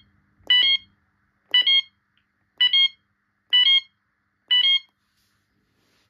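Fire alarm sounders on a Gent Xenex system sounding a class-change signal: short two-pitch beeps, each stepping slightly up at its end, about one a second. Five beeps sound, and they stop about five seconds in.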